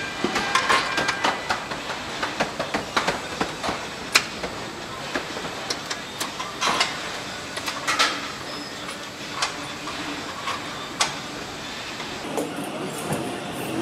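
Car assembly hall din: a steady background of machinery noise with frequent irregular metallic clicks and clanks from hand tools and parts being fitted.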